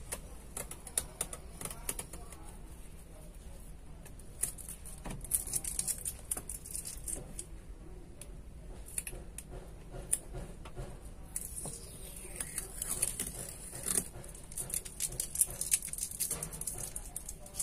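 Hand pressing and rubbing an inspection sticker onto the inside of a curved windshield: scattered small clicks and taps of fingers and sticker film against the glass and dashboard.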